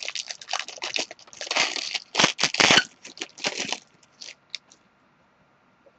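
Trading cards being handled and sorted: a dense run of rustling and scraping for about four seconds, then a few light clicks.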